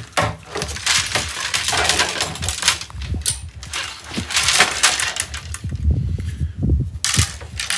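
A run of sharp, irregular clicks and clinks of hard objects knocking together, several a second.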